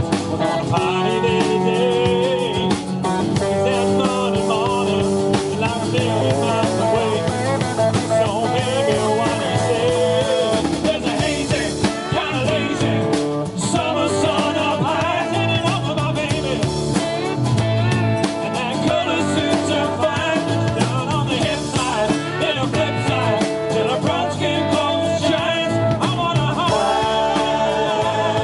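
Country band playing live: strummed acoustic guitar, electric guitar and drums, with a man singing lead vocals.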